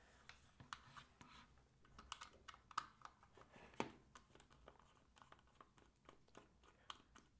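Faint, irregular clicks and ticks of a screwdriver working on the screws of a Retekiss TR-605 portable radio's plastic case while the case is handled. One sharper click comes about four seconds in.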